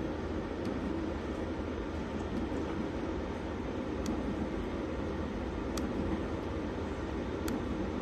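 Steady low mechanical drone of running machinery, with a few faint sharp ticks about every second and a half.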